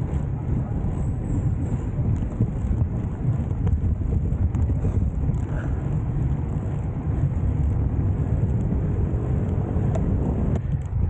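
Steady low wind rumble and road noise on the microphone of a camera riding on a road bicycle.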